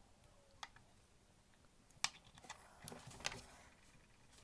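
A few small, sharp clicks and taps of tweezers and a steel fusee chain being handled and laid down on the work surface, the loudest about halfway through, followed by a short cluster of lighter taps and handling noise.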